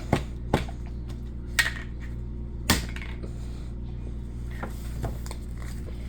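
A few sharp, irregular taps and clicks of hard objects, the loudest near the start and close to three seconds in, over a steady low hum.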